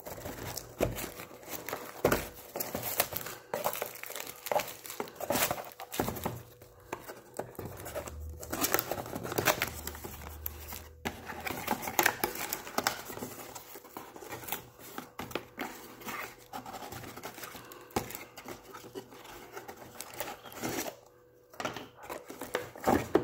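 Clear plastic shrink wrap crinkling and tearing as it is pulled off small cardboard boxes, then the cardboard box being opened, with irregular crackles and rubs throughout that thin out near the end.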